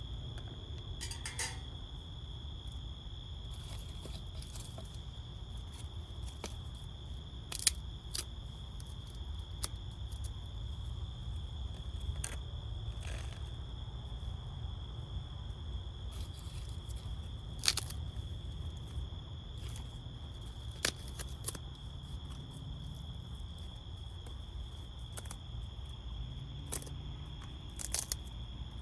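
Outdoor ambience: a steady low rumble of distant highway traffic under a steady high insect drone, broken now and then by single sharp clicks and snaps.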